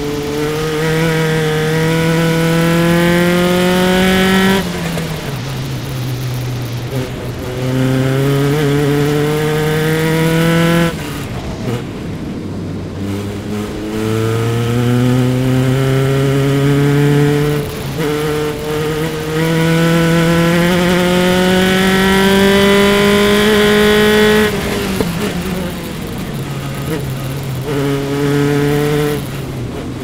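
Single-seater race car engine at full throttle, heard onboard from the engine bay. Its pitch climbs through the gears with several quick upshifts, falls away twice as the car lifts off for corners, then climbs again.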